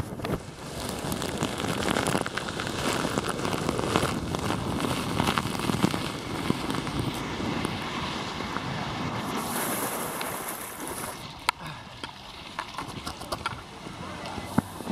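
Wind noise on the microphone mixed with rushing, splashing water, with a few sharp clicks near the end.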